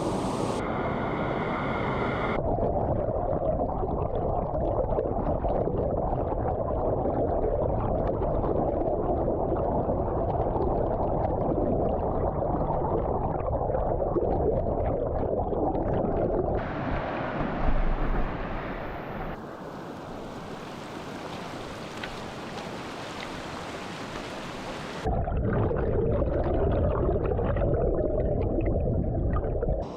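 Rushing river water, a loud, steady rush that changes abruptly in tone several times.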